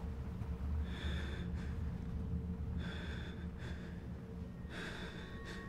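A man breathing heavily and unsteadily, about five audible breaths, over a low steady rumbling drone.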